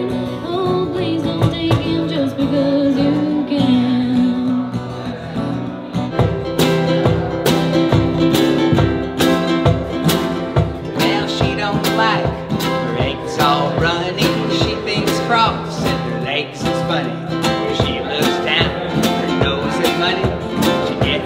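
Live acoustic band playing a bluegrass-style tune: strummed acoustic guitars and a small plucked stringed instrument, with singing. A steady drum beat, about two a second, joins about six seconds in.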